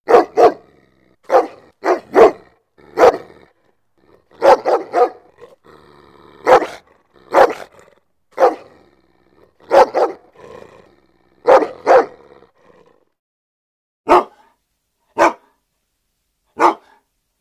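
A dog barking angrily in short, sharp barks, some in quick pairs and runs of three, thinning near the end to single barks about a second apart.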